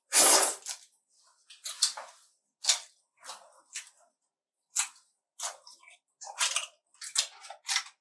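Close-miked eating sounds: crisp short bursts of chewing on a fried chicken burger, with a louder, longer noisy burst right at the start.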